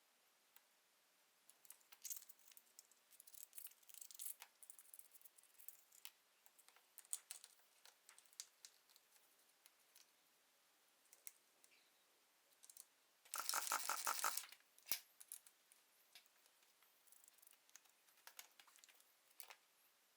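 Faint, scattered clicks and taps of small chainsaw parts being handled and fitted during reassembly. About thirteen seconds in comes one louder rasping burst lasting about a second, followed by a single sharp click.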